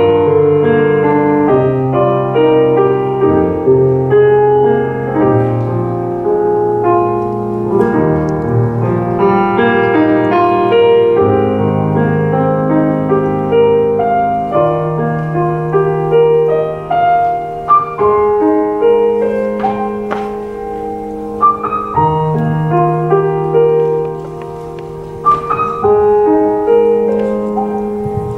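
Grand piano played solo: a melody over sustained low chords. It grows softer and sparser about two-thirds of the way in, with single notes ringing out, before filling out again near the end.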